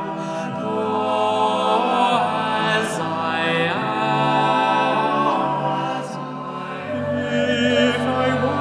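Male a cappella vocal ensemble singing a slow Christmas carol in long, sustained chords.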